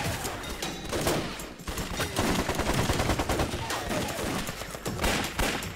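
A dense volley of gunfire, many shots fired in quick, overlapping succession.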